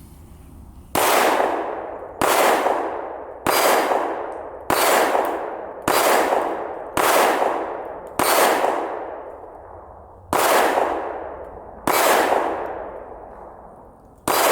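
Glock 43X MOS 9mm pistol fired in slow, steady succession, about one shot every second or so. Each crack is followed by a long ringing tail. There are nine shots, starting about a second in, and a tenth right at the end.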